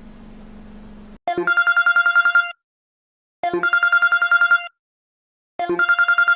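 Telephone ringing: three trilling rings, each about a second long, with about a second's pause between them. A faint low hum comes before the first ring.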